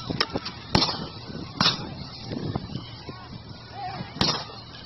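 A series of gunshots at uneven intervals: a few loud, sharp shots with fainter cracks between them.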